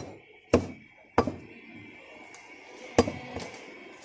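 Butcher's cleaver chopping meat on a wooden log chopping block: two sharp chops about half a second apart early on, then another about three seconds in.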